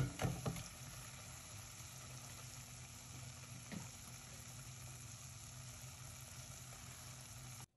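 Mutton pieces sizzling in oil in a nonstick pot, a steady frying hiss. In the first half second a silicone spatula scrapes and knocks through the meat; the sizzle cuts off suddenly near the end.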